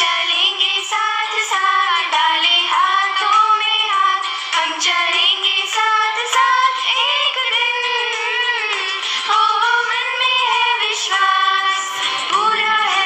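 A woman singing a morning prayer song in a high voice, with long held notes.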